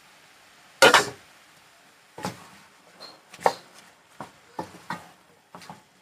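Wooden spoon knocking and scraping against a pan while stirring chopped bok choy and collard greens: a string of sharp, uneven knocks, the loudest about a second in.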